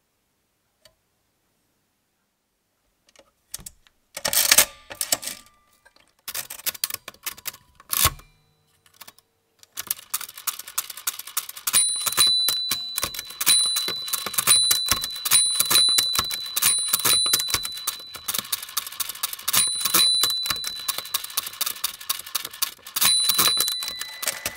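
Walther WSR 160 pinwheel mechanical calculator being worked by hand. After a few quiet seconds come scattered clicks of its setting levers and carriage. From about ten seconds in the crank turns with dense rapid clicking, and a small bell rings over and over; this is the calculator's overdraft bell, which marks each overshoot during division.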